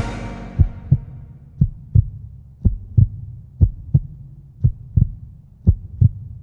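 Heartbeat sound effect: slow, even pairs of low thumps (lub-dub), about one beat a second, as the echo of the cut-off music dies away in the first second.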